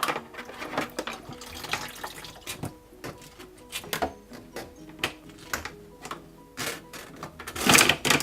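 Small hand tools clicking and scraping inside a wet dishwasher drain hose as clogged food debris is picked out, with water dripping and splashing. A louder burst comes near the end.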